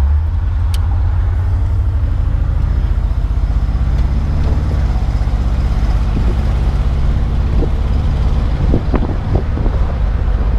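1975 Buick LeSabre's 350 V8, fitted with an added dual exhaust, running steadily at cruising speed, heard from inside the car. A low, even engine and exhaust note is mixed with road and wind noise.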